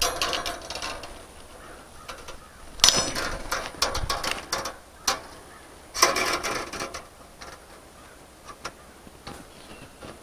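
Hand cutters working on steel fence bracing wire to cut off the excess: a few short metallic clicks and rattles, loudest about three seconds in and again about six seconds in.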